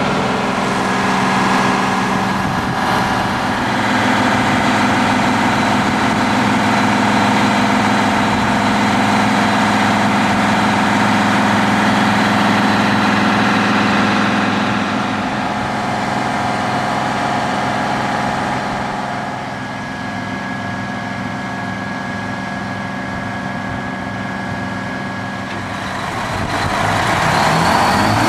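Detroit Diesel engine of a 1981 GMC bucket truck running steadily while the aerial boom is worked. The sound eases a little about two-thirds of the way through. Near the end it grows louder as the truck drives off.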